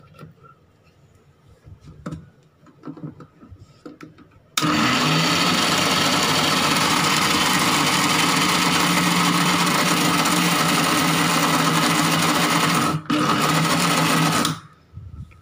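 Electric mixer grinder running at full speed, blending biscuit crumbs, oil and milk into a wet cake batter. It starts abruptly after a few light knocks as the lid is set in place, with a steady motor hum and whir. It drops out for an instant near the end, then stops.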